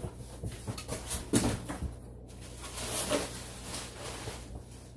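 Cardboard box being opened by hand: several sharp knocks and clicks of cardboard flaps being handled, then a longer rustling scrape about three seconds in.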